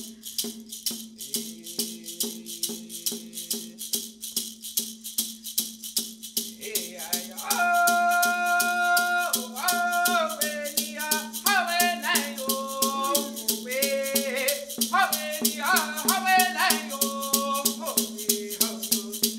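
Hand rattle shaken in a steady beat, accompanying singing of a Women's Dance song: a low voice comes in about a second in and a stronger, higher voice takes up the melody at about seven seconds. A steady hum sits underneath.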